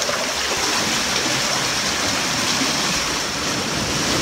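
Seawater rushing and churning steadily through a narrow channel between granite boulders.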